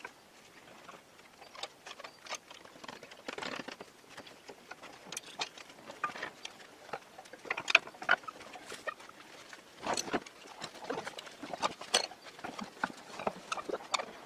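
Old farm cart with a wooden plank deck and rubber-tyred wheels being hauled across grass by hand: an irregular run of knocks and clatters from its wooden deck and metal frame.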